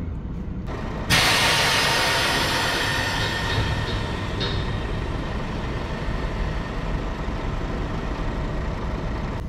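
A sudden loud hiss of compressed air, starting about a second in and fading slowly over several seconds, as the flatbed trailer's air-suspension lift axle raises its front axle off the ground. A diesel truck engine idles steadily underneath.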